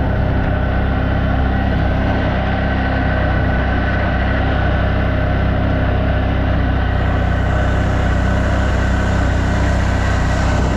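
CF Moto 1000's V-twin engine running steadily, an even low drone with no misses. It runs normally after a faulty solenoid was replaced.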